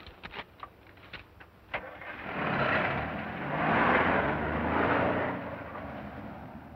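A few light clicks, then a 1930s-era car driving past: its engine and road noise swell to loudest about four seconds in, then fade.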